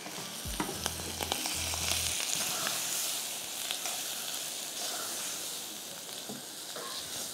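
Chopped onion, mushrooms and flour sizzling in butter and oil in a speckled nonstick saucepan while being stirred with a spoon. A few spoon knocks on the pan come in the first second and a half.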